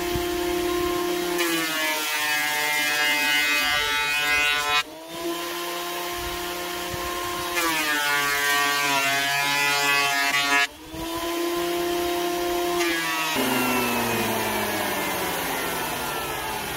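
Electric benchtop thickness planer planing cedar boards. The motor's note drops each time a board feeds through the cutter and the machine takes the load. About 13 s in it is switched off and winds down in a falling whine.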